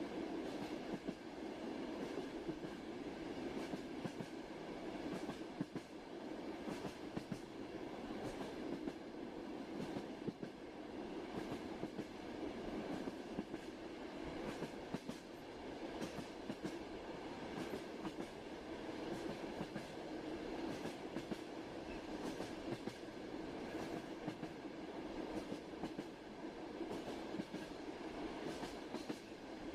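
Passenger train running steadily, heard from inside the carriage: a continuous rumble with light, irregular wheel clatter on the rails.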